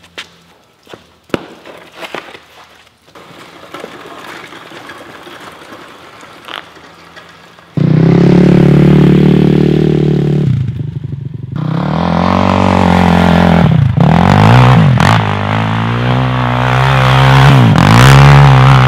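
Footsteps on a concrete garage floor. Then, about eight seconds in, the Kawasaki KFX 450R quad's single-cylinder four-stroke engine cuts in loud, revving up and falling back again and again as the quad drifts through snow.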